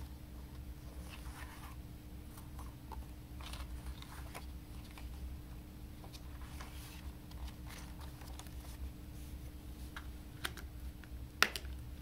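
Pages of a glossy booklet being turned and handled, soft paper rustles and small clicks, then a sharp plastic click near the end as the Blu-ray case is handled.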